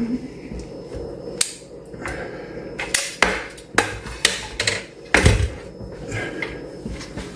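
Caulk gun clicking as its trigger is squeezed to lay a silicone bead, about half a dozen sharp clicks and knocks a fraction of a second to a second apart.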